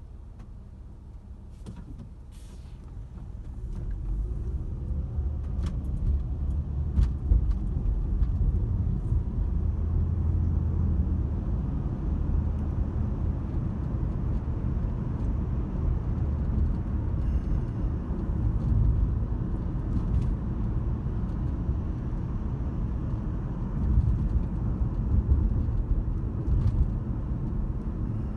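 Low engine and tyre rumble of a car heard from inside its cabin: quieter while stopped, rising about four seconds in as the car pulls away, then steady road noise while driving.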